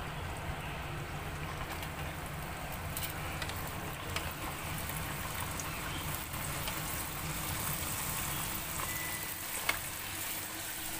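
A puri deep-frying in hot oil in a metal pan: a steady sizzle while the dough is pressed and puffs up, with a few short clicks.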